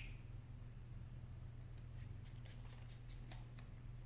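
Faint light clicks and taps of a precision screwdriver and small iPhone 6 parts being handled, a quick run of them from about two to three and a half seconds in, over a steady low hum.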